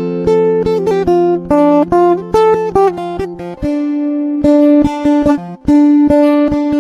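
Background music: a plucked string instrument picking a melody of single notes over sustained lower notes.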